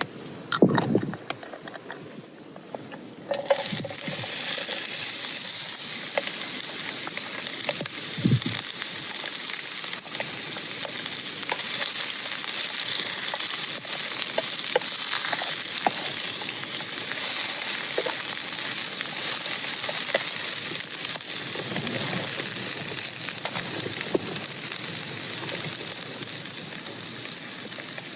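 Food frying in a pan: a few knocks, then a loud, steady sizzle that starts suddenly about three seconds in.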